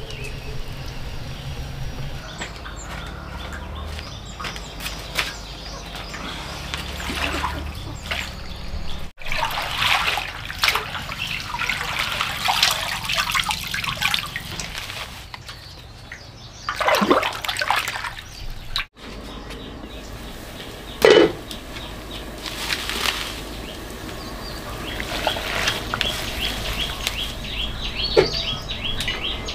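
Water splashing and trickling as leafy greens are swished and rinsed by hand in a metal basin, with birds chirping. A few sharp knocks stand out, the loudest about two-thirds of the way through.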